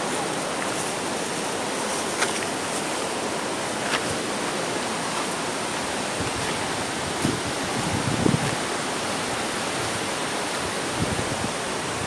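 Steady rush of a waterfall and its river running over rocks: an even, unbroken roar-like hiss, with a few faint ticks.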